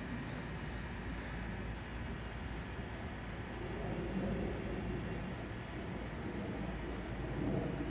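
Distant jet airliner, a Boeing 737-700 with CFM56-7B turbofans on approach, giving a steady low rumble as it passes overhead. Insects chirp faintly in a high pulsing rhythm of about three beats a second.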